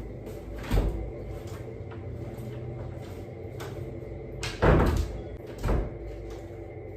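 Door and handling thuds: three separate knocks, about a second in, a louder one just past halfway and a smaller one a second later, over a steady low hum.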